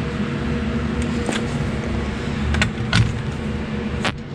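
Steady shop background hum with a few light, sharp clicks and clinks of small parts and tools being handled during brake work on the car.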